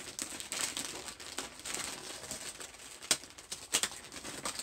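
Wrapping paper on a parcel rustling and crinkling as it is handled and pulled at, with a few sharp crackles, the loudest about three seconds in.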